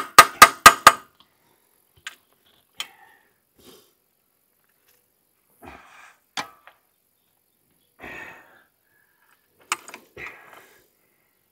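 Five sharp knocks in quick succession, about four a second, then scattered faint clicks and soft handling noises.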